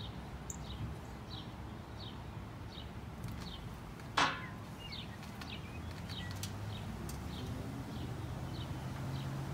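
A bird chirping over and over, short falling chirps about twice a second. About four seconds in comes one louder squeak that sweeps steeply down in pitch, and near the end a low steady hum grows in.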